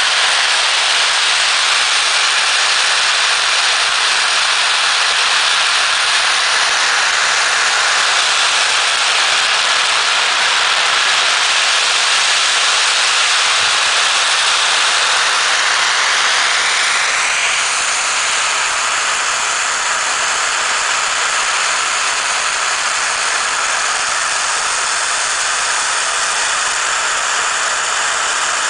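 Giant hanging strings of millions of firecrackers going off at once, the reports so dense that they blend into one continuous rushing crackle. It eases slightly about seventeen seconds in.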